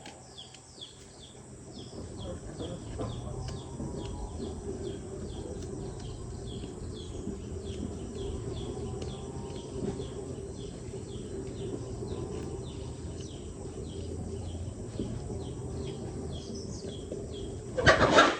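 A small bird chirping over and over, short high chirps several times a second, over steady background noise; a loud rustling burst near the end.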